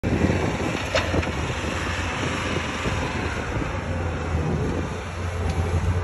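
Bobcat compact track loader's diesel engine running steadily as the machine works dirt, with a sharp click about a second in.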